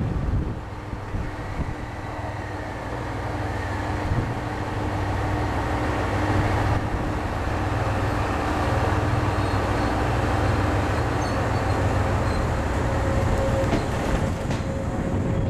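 A train running at the station: a steady rumble with a low hum, no announcements over it.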